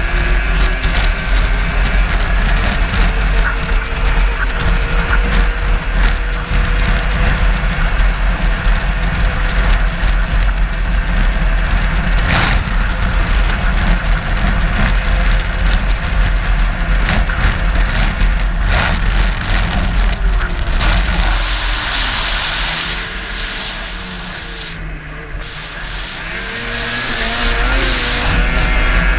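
Race car running hard, heard from an onboard camera: a loud, steady engine noise with a heavy rumble, and one sharp knock partway through. About two-thirds of the way through, the engine backs off for a few seconds, its pitch falling, then climbs back up as the car gets back on the throttle.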